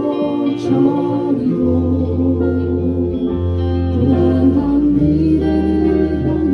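Live band music with group singing over a keyboard playing organ tones and a held bass line.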